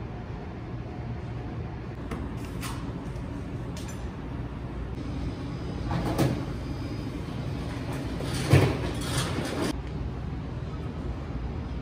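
Indoor café ambience: a steady low hum with a few short knocks and rustles, the loudest about two-thirds of the way through.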